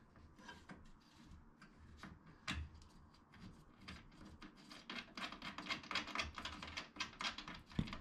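Light clicks and taps of a metal bolt and washer being handled against a wooden cot base rail and turned in by hand, coming thick and fast in the second half, with one sharper knock near the end.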